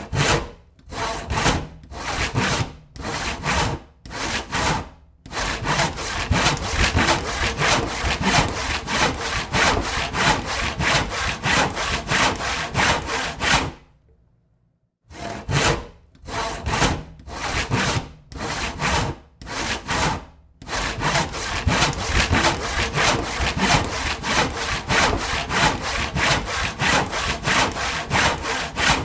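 Hand saw cutting through wood, stroke after stroke. It starts with separate, spaced strokes, then settles into a fast steady back-and-forth of a few strokes a second. It stops for about a second near the middle, then starts again the same way, spaced strokes running into a fast steady rhythm.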